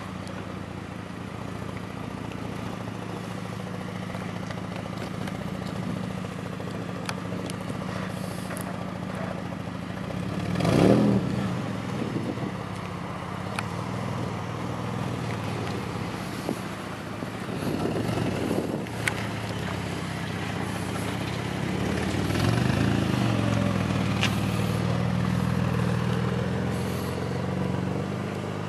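Mercedes SL 350's V6 idling through a custom stainless race exhaust, with a sharp, loud rev blip about a third of the way in. A smaller rev follows later, then the revs are held higher for several seconds near the end before easing.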